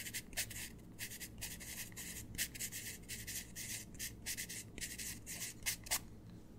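Pencil writing on paper: a quick run of short scratchy strokes, stopping about six seconds in.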